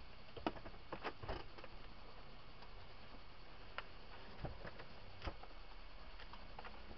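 Steady low hum inside a stopped vehicle's cabin, with scattered light clicks and knocks, a cluster about a second in and a few more later.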